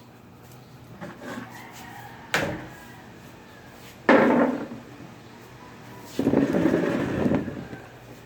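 Knocking and handling noise: a sharp knock about two seconds in, a louder bang about four seconds in, then a second or so of rubbing, scraping noise, like wooden furniture or cabinet parts being moved.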